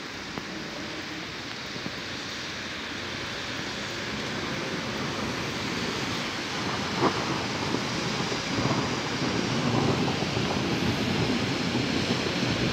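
Steady hiss of rain and wind, slowly growing louder, with a low rumble building in the second half and a single sharp tick about seven seconds in.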